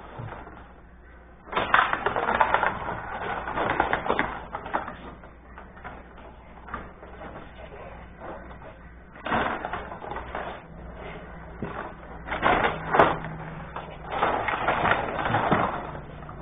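Benej rod table hockey game in play: quick clattering of the rods, plastic players and puck knocking against each other and the boards, in several bursts with quieter gaps between.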